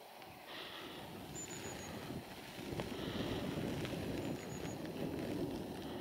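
Wind rumbling on the microphone, growing stronger about two and a half seconds in. A faint, short, high note sounds twice, about three seconds apart.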